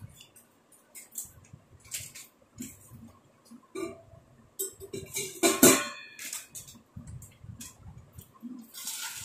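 Crinkling of a plastic snack packet and clinking of stainless-steel bowls and tins as food is handled, with one louder clatter a little past halfway.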